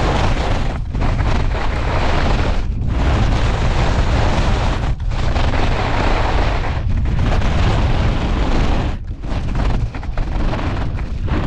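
Skis carving hard on packed snow, heard from a camera mounted low by the skis, with wind buffeting the microphone: a loud rushing scrape over a deep rumble, dipping briefly about every two seconds.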